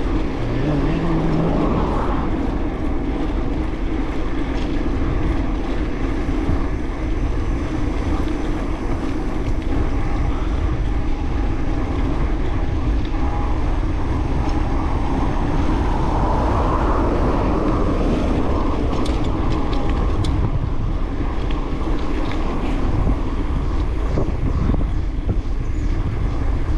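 Wind rushing over a GoPro's microphone on a moving bicycle, a steady rumble mixed with road noise, swelling briefly about two seconds in and again a little past halfway.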